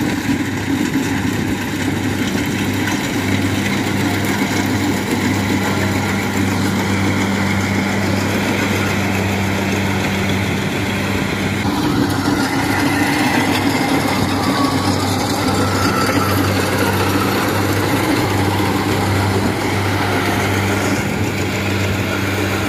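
Rice combine harvester's diesel engine and threshing machinery running steadily, a constant hum under a dense mechanical clatter. The sound shifts about twelve seconds in.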